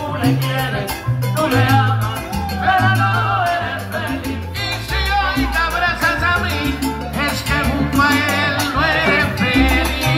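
Live salsa band playing, with an upright bass pattern, percussion, piano and voices singing.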